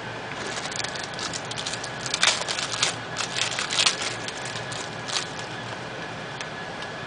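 Crinkling foil trading-card pack wrapper and rustling cards: a flurry of sharp crackles for about four seconds, then a single click.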